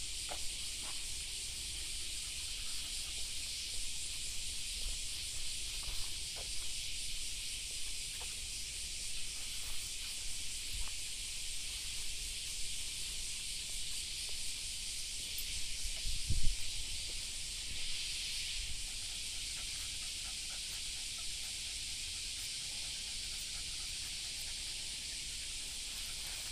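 A steady high-pitched hiss of outdoor ambience, with a few faint ticks and one low thump about sixteen seconds in.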